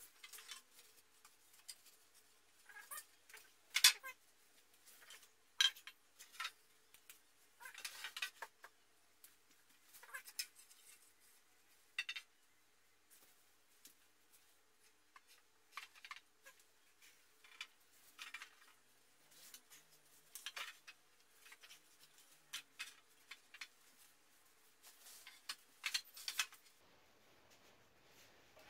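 Scattered knocks, clacks and short scrapes of wooden platform bed-frame rails and parts being handled and set in place, the loudest knock about four seconds in.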